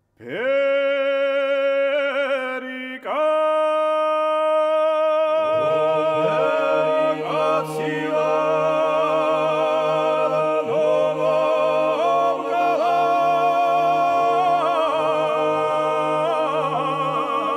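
Vocal music: a voice holds long sung notes with vibrato, and about five seconds in a low steady drone joins beneath it.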